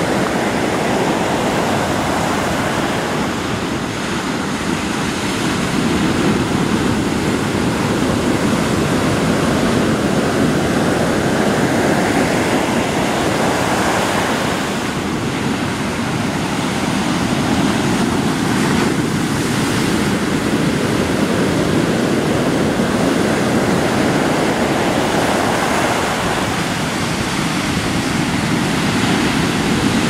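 Ocean surf breaking and washing up a sandy beach: a continuous wash of water noise that swells and eases over several seconds as each wave comes in.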